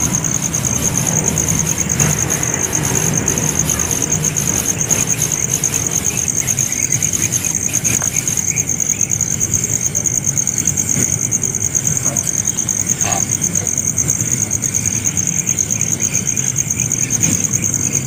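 Steady high-pitched insect trill, buzzing on without a break, over a low steady rumble.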